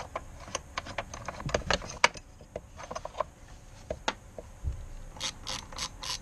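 Ratchet wrench with an extension and 10 mm socket clicking as it loosens the battery hold-down clamp bolts, with one sharp click about two seconds in. After a quieter, sparser stretch, the ratchet starts clicking again at an even pace, about four clicks a second, near the end.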